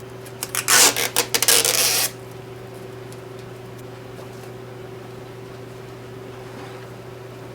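Protective plastic film being peeled off a new printer's control panel: a crackling, rustling burst lasting under two seconds about half a second in. After it only a steady low hum remains.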